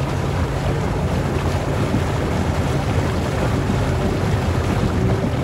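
Engine of a Polaris RZR side-by-side running steadily as the machine wades through deep muddy water, with water churning and sloshing around it and wind noise on the microphone.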